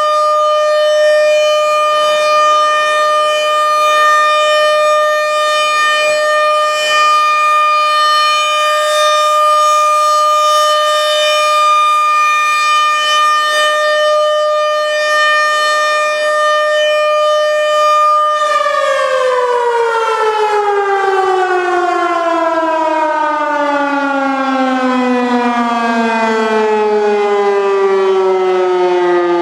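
RM-130 outdoor warning siren sounding a steady, loud tone for its test. About two-thirds of the way in it shuts off and winds down, its pitch falling smoothly and steadily.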